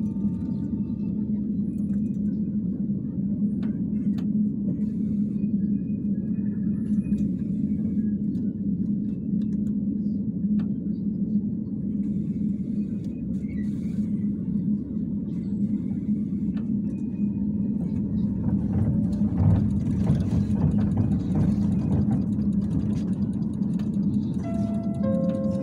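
Cabin noise of a Bogdan T701.10 trolleybus under way: a steady low hum and rumble with faint thin tones over it. About three-quarters of the way through the noise swells into a brief louder rush, and near the end comes a quick run of tones stepping down in pitch.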